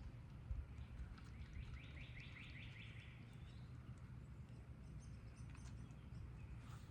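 A songbird singing a quick trill of about eight repeated notes, starting about a second and a half in and lasting under two seconds, then a few short high chirps near the end, over a steady low rumble.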